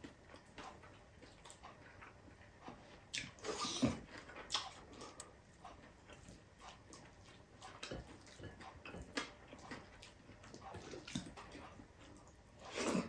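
Close-up eating sounds of a person eating rice and fried milkfish by hand: chewing and lip smacking with soft clicks of fingers and food on a plate, a little louder around four seconds in and again near the end.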